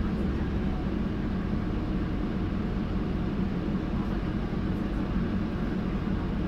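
Solaris Urbino 18 articulated city bus heard from on board while under way: steady engine and drive-axle running noise, deep and even.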